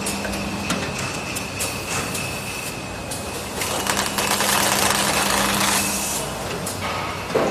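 Wallpaper-roll film sealing and capping packing machine running: a steady mechanical hum with a faint high whine and scattered clicks of its mechanism, louder for a couple of seconds midway.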